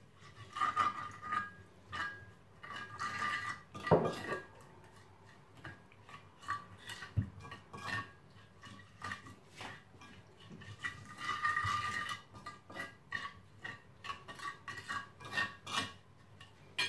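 Spoon stirring and scraping around a ceramic plate while mixing a wet chermoula marinade, with repeated clinks and brief ringing from the plate; one louder knock comes about four seconds in.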